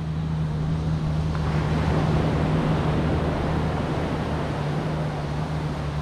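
Surf washing on a sandy beach, an even rushing hiss, under a steady low hum.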